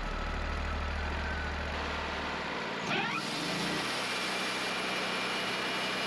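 Wood-Mizer LT40 sawmill's engine running steadily, with a short rising whine about three seconds in.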